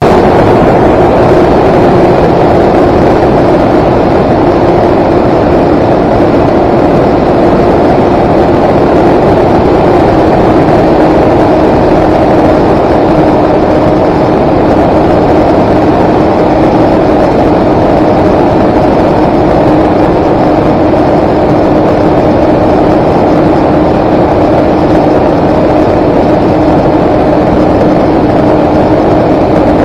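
Steady motor-and-propeller drone of a small camera aircraft heard from its onboard camera, mixed with wind rush; the hum's pitch eases slightly lower through the flight.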